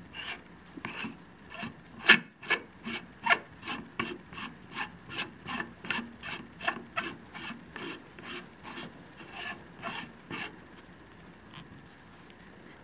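Helical focuser on a Lunt 40mm solar telescope being screwed onto the tube by hand: a rhythmic dry rasping of the threads, about two to three short strokes a second, which stops a couple of seconds before the end.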